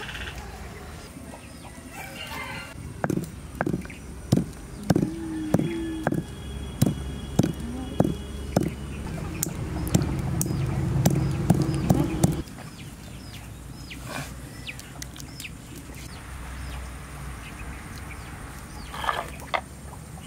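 Chickens clucking: a series of short clucks, a little under two a second, for about nine seconds, crowding together toward the end before they stop.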